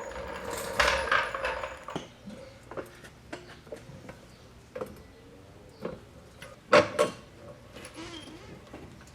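Light scuffling, then scattered sharp metallic clicks and clinks of objects being handled, with the loudest two knocks in quick succession about seven seconds in.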